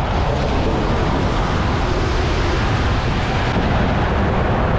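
Car driving on a wet road: steady tyre and wind noise rushing over the camera's microphone.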